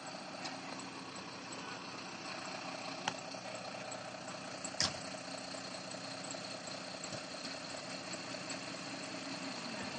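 Mercedes Atego fire truck's diesel engine idling steadily, with a sharp knock about five seconds in and a fainter one just before it.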